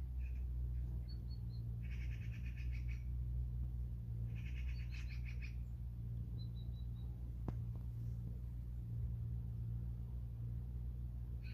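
Small songbirds calling: two rapid rattling trills and a few short runs of thin, high notes, over a steady low hum. A single sharp click about seven and a half seconds in.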